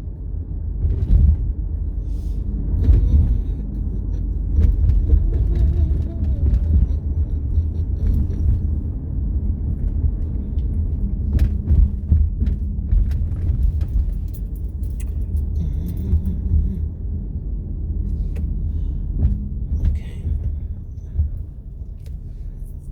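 Steady low road rumble of a moving car, heard from inside the cabin, with scattered small clicks and taps over it.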